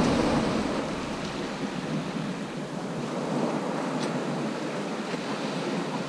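Small waves breaking and washing up a shingle beach: a steady hiss of surf, louder in the first second and then easing to an even level.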